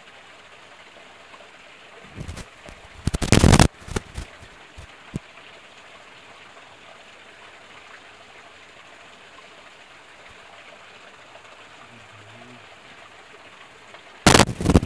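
Steady hiss of water running in a small stream. It is broken by two brief loud noises, one about three seconds in and one near the end, and a few faint clicks.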